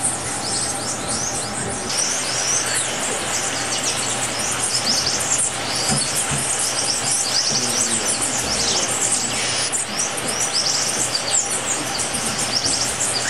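Many birds chirping at once: a dense chorus of short, high calls and quick sweeps overlapping over a steady hiss.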